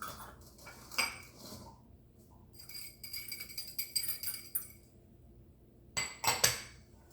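A utensil stirring dry seasonings in a mixing bowl, clinking against its sides: scattered clinks, then a run of rapid clinking in the middle, and a few sharper, louder knocks against the bowl near the end.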